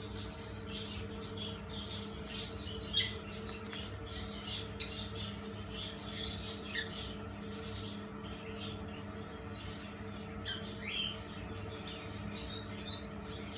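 Baby monkey-tailed skink biting and tearing lettuce leaves: scattered soft crackles and clicks, over a steady low hum.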